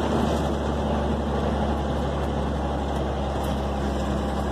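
Truck engine running steadily, heard from inside the cab while driving, with a constant low hum and road noise.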